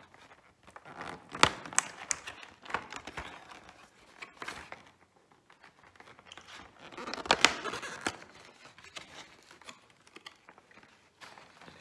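Cardboard door of a Lindt chocolate advent calendar being pressed and torn open, crinkling and cracking in two bursts, about a second in and again about seven seconds in, with lighter handling of the box between.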